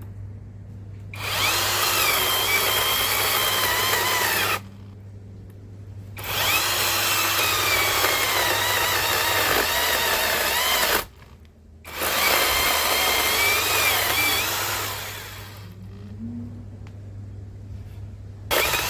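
Cordless electric chainsaw running in three long bursts and a brief one near the end, its motor pitch wavering as it cuts through wood.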